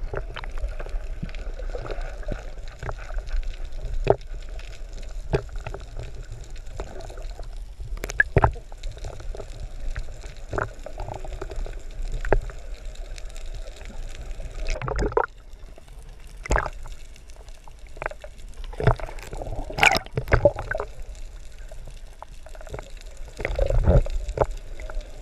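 Water heard from a camera held underwater: a muffled, steady gurgling wash with scattered sharp clicks and knocks, several louder ones in the second half.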